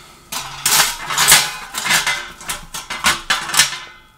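Handling noise from a padded nylon stove carry bag as a flat panel is moved and laid inside it: a run of irregular rustles, scrapes and light clatter, loudest about a second in and dying away near the end.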